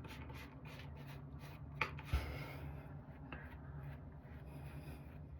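Shaving brush swished over the face, faint rapid rubbing strokes, about four or five a second, with a couple of light clicks. The lather is nearly used up, so the brush gives almost no audible feedback.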